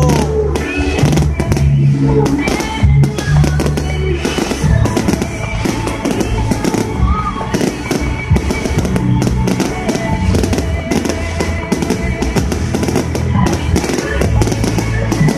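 Fireworks bursting and crackling in many rapid bangs, over music with a heavy bass beat.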